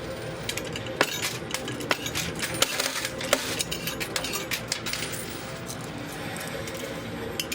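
Quarters clinking in a coin pusher machine: coins dropping onto the playfield and knocking against the stacked quarters, an irregular run of sharp clicks over a steady machine and arcade background.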